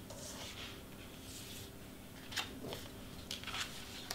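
Faint rustling and a few soft scrapes of cardstock pieces being handled and lifted, the loudest about two and a half seconds in.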